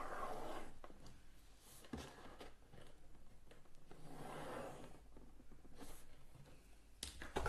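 Pencil drawing lines on a cardboard cereal box: faint scratching strokes, with a light knock about two seconds in and a couple more near the end.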